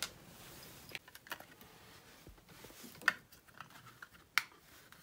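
Scattered light clicks and taps from laptop parts and screws being handled during disassembly, the sharpest about three and four and a half seconds in.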